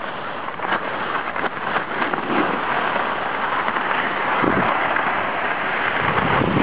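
Skis hissing and scraping over packed snow during a downhill run, a steady noisy rush that slowly grows louder. From about four and a half seconds in, wind buffets the microphone with a low rumble.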